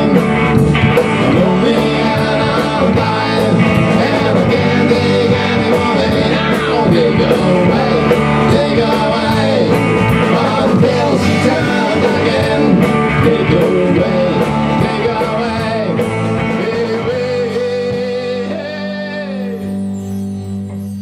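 Rock band playing live: electric guitars over a Tama drum kit with steady cymbal strokes. About three-quarters of the way through the drums stop, and a held guitar chord with a few string bends rings on and fades as the song ends.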